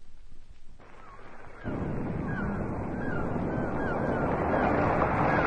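A steady rushing surf-like noise fades in, stepping up louder about one and a half seconds in, with faint high gliding cries repeating over it. It is most likely a recorded sound effect opening the next song on the record.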